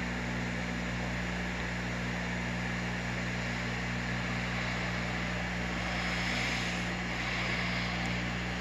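Steady mechanical hum with an even hiss, unchanging throughout, like a running fan or ventilation unit.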